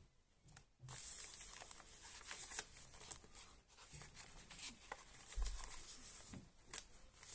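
Pages of a handmade junk journal being turned and handled: stiff, aged paper rustling and crinkling, with soft irregular taps, starting about a second in.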